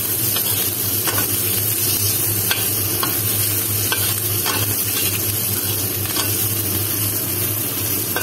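Sliced onion and ginger sizzling in oil in a stainless steel wok as a spatula stirs them, with scattered light scrapes and taps of the spatula against the pan. A steady low hum runs underneath.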